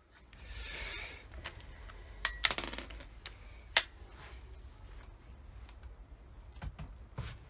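Handling noise of a .22 LR bolt-action rifle being lifted away after a shot: a rustle, then a cluster of sharp metallic clicks and clinks about two and a half seconds in, a single sharp click near four seconds, and a few small knocks near the end.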